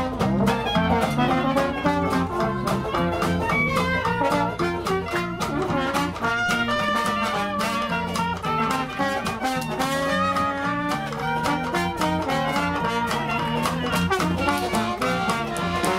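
Dixieland jazz band playing live: banjo and electric guitar keeping a steady beat, with trumpet and clarinet on the melody.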